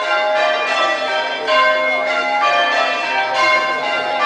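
Church tower bells being change-rung: the bells strike one after another in an even sequence, each note ringing on and overlapping the next.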